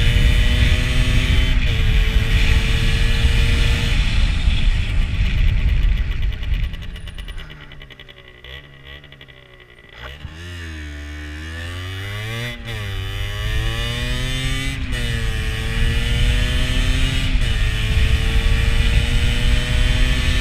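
Rieju SMX 50's two-stroke 50cc engine under way: revving up through the gears, its pitch climbing steadily and dropping back at each upshift. About six seconds in it goes quieter as the bike slows, the throttle is blipped up and down, and then it pulls away and climbs through the gears again.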